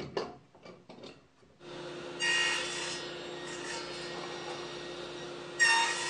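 A few knocks of wood being handled, then a table saw starting up about a second and a half in and running steadily. Twice, shortly after start-up and again near the end, it grows louder and brighter as the blade cuts into the wooden axe handle held in a box joint jig, squaring a flat reference surface on it.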